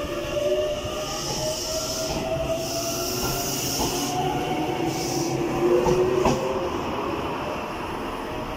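Fukushima Kotsu Iizaka Line 1000 series electric train pulling out of the station: the motor whine rises in pitch as it picks up speed over the rumble of the wheels. There is a single clack from the wheels about six seconds in.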